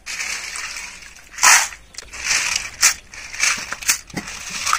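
Snails being washed by hand in a steel bowl of water: water sloshing and snail shells scraping and clattering together in a series of short bursts.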